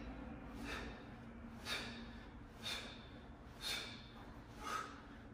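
A person breathing out hard through the mouth, one sharp exhalation about every second, five in a row, keeping time with repeated V-crunch reps.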